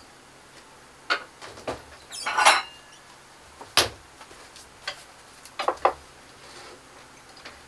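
Kitchen clatter as a serving dish is fetched and set down: about half a dozen separate sharp knocks, with a short clinking rattle about two and a half seconds in and the loudest knock near four seconds.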